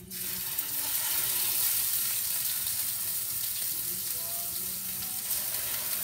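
Raw chicken thigh pieces laid into hot oil in a stainless steel pan: the sizzle starts suddenly as the first piece goes in and carries on as a steady frying hiss. It flares briefly again near the end as another piece is added.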